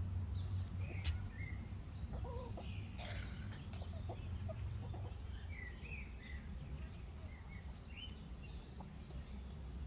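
A flock of backyard chickens foraging, giving a few short, soft clucks and scattered high chirps over a steady low rumble.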